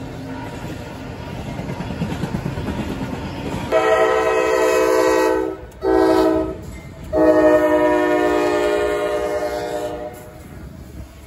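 A freight train rumbling past, then a diesel locomotive's horn sounds three blasts from about four seconds in: long, short, then long.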